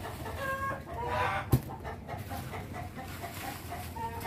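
Chickens clucking in many short, repeated calls, with one sharp knock about a second and a half in.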